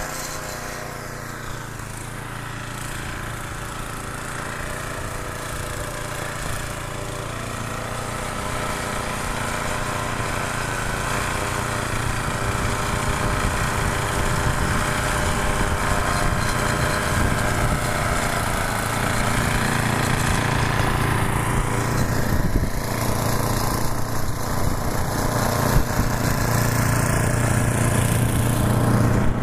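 Gas snow thrower's small engine running steadily, slowly growing louder over the stretch.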